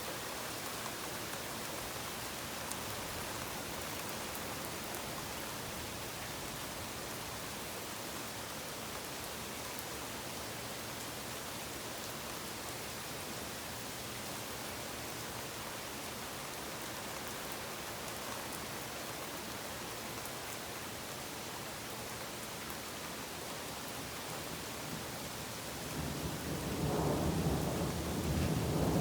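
Steady rain falling in a thunderstorm, a constant even hiss; near the end a roll of thunder rumbles in and grows louder.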